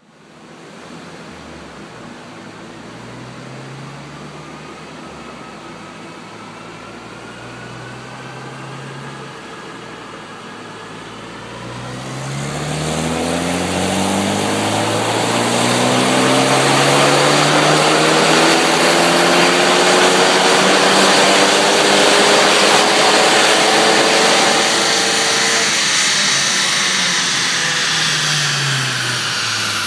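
Ford Focus ST's turbocharged four-cylinder engine and exhaust under a long full-throttle pull. The engine runs fairly quietly at first. About twelve seconds in it gets much louder, and the revs climb steadily for over ten seconds. Near the end the revs fall away as the throttle is released.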